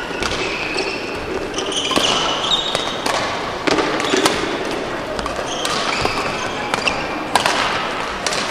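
Badminton play in a sports hall: a series of sharp racket strikes on the shuttlecock, irregularly spaced, with short squeaks of shoes on the court floor over a murmur of background noise.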